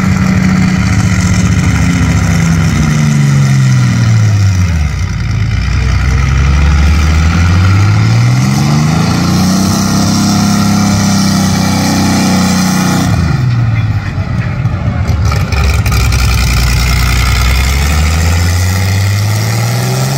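Naturally aspirated super stock pulling tractor's engine, loud, with its engine speed sweeping slowly up and down: it falls over the first few seconds, climbs again, holds briefly, drops around the middle, stays low for a few seconds and climbs once more near the end.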